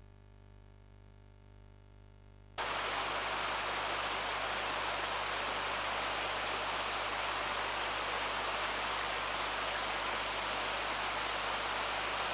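Near silence with a faint hum, then about two and a half seconds in a steady rushing of water from a small cascading stream comes in abruptly and holds evenly.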